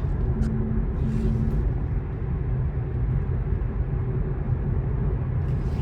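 Road and tyre noise inside the cabin of a 2024 Tesla Model 3 AWD driving on a road: a steady low rumble. A low hum pulses on and off a couple of times during the first second and a half.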